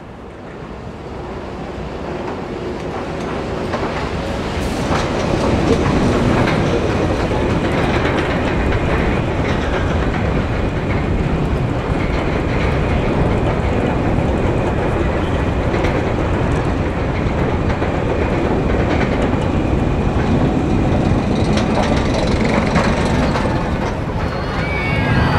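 Roller coaster train climbing the lift hill: a steady mechanical rumble and rapid clattering that builds over the first few seconds, then holds even.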